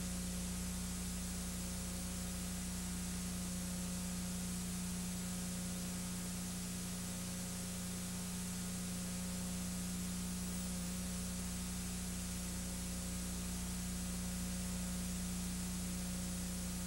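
Steady hiss with a constant low hum, the noise floor of the recording, with no other sound.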